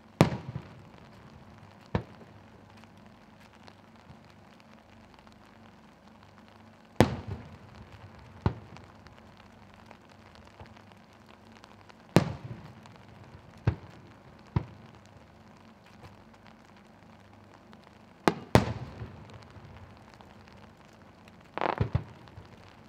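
Aerial firework shells bursting high overhead: a series of sharp booms a few seconds apart, each with a short echo, ending in a quick rattle of reports.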